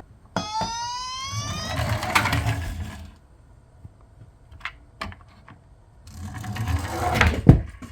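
Small die-cast toy cars rolling down a slope with a rattling whir, twice: once in the first three seconds and again building from about six seconds in, ending in one sharp knock. A rising tone sounds near the start, and a few light clicks fall in the quieter middle.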